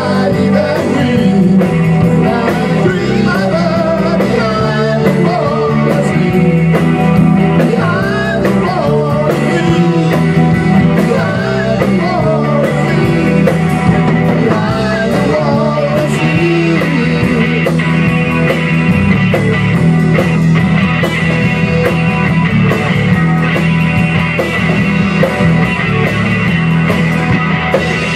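A rock band playing: electric guitar, electric bass and a Tama drum kit, in a passage with no clear lyrics.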